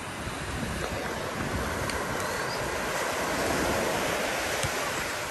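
Surf breaking and washing up a sandy beach, swelling to a peak a little past halfway and easing off near the end, with wind buffeting the microphone.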